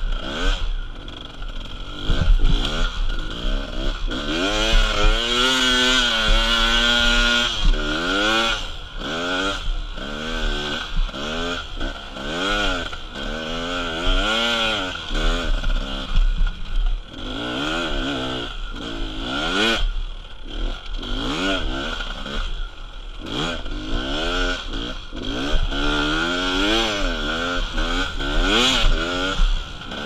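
Enduro motorcycle engine revving up and down again and again as the bike is ridden through loose, rutted sand, heard from an onboard camera with wind rumble and knocks from the bumps.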